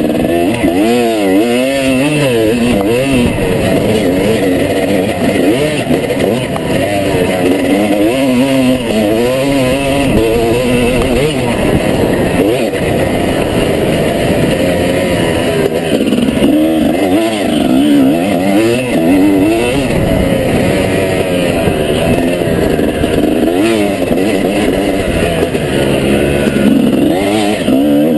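250 cc Honda motocross bike engine being ridden hard, revving up and falling back again and again as the rider works the throttle and gears.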